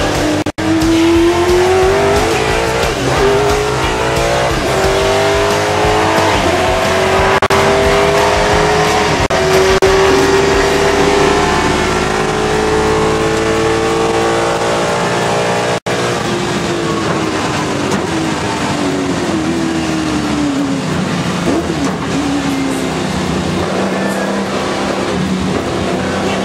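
A V8 Supercar's V8 engine at racing revs, heard from inside the car. Its pitch climbs in several steps as it pulls up through the gears, then falls as the car slows, then runs lower and steadier. The sound cuts out twice very briefly.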